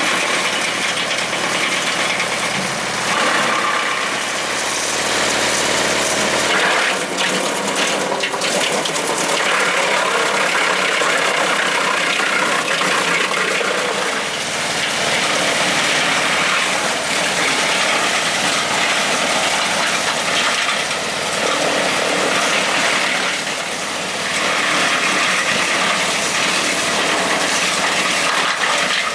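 Tractor running a PTO-driven Remet RT 630 wood chipper: steady, loud engine and machine noise with no pauses.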